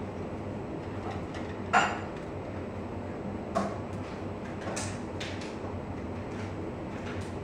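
A wicker basket clicking and rattling as kittens scramble over it, a few short knocks over a steady background hiss, the sharpest a little under two seconds in.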